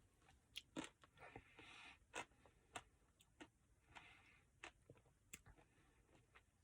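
Quiet, close eating sounds: chewing and biting into a chocolate brownie Blizzard, with scattered sharp clicks and a couple of short stretches of soft noise.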